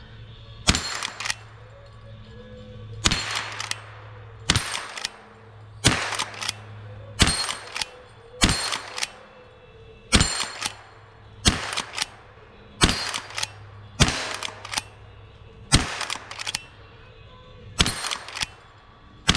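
Henry lever-action .22 LR rifle firing a steady string of about a dozen shots, roughly one every second and a half, with the lever cycled between shots.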